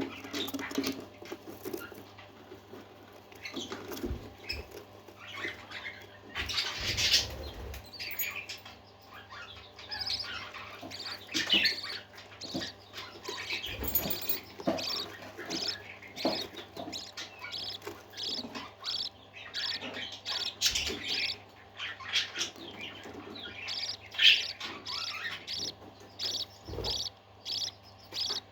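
Parakeets chirping and twittering in many short, quick calls, with a few soft thumps scattered among them.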